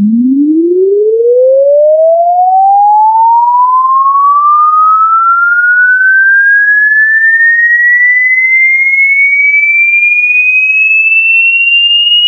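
A single pure electronic tone sweeping steadily upward in pitch, from a low hum to a high whistle: a frequency sweep test tone.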